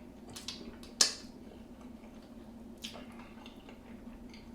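Close-miked eating of a buttery seafood boil: wet, squishy chewing and lip smacks with scattered clicks, and one sharp loud click about a second in, over a faint steady hum.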